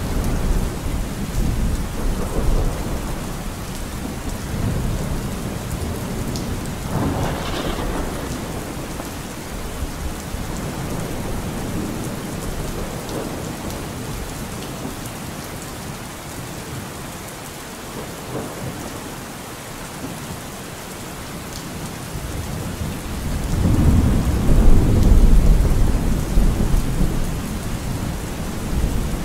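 Steady rain with low rolling rumbles of thunder. The loudest, deepest rumble swells up about 24 seconds in and dies away over a few seconds.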